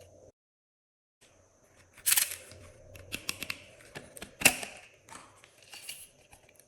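Glossy slime being squished and worked by hand, giving wet clicks, crackles and small pops, with louder squelches about two seconds in and again about four and a half seconds in.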